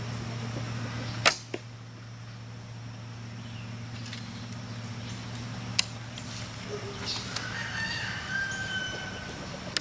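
Quiet outdoor background with a few sharp clicks, the loudest about a second in, and a faint bird call with gliding pitch near the end.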